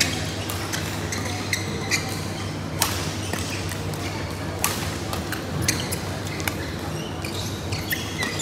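A badminton rally: sharp racket-on-shuttlecock hits about every second or so, with short squeaks of shoes on the court mats.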